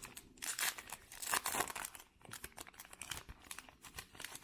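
Baseball card pack wrapper crinkling and tearing as it is opened by hand, a run of irregular crackles.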